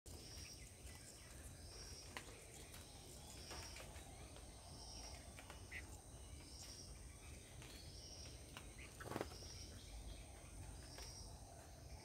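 Faint garden ambience: a steady high hiss with a short high-pitched pulse repeating every half second to a second, a few brief chirps and clicks, and one short louder sound about nine seconds in.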